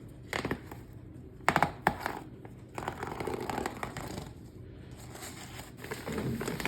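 Rustling and scuffling in a sheep pen's bedding as a ewe and her newborn lambs are settled in, with a few short knocks about one and a half to two seconds in.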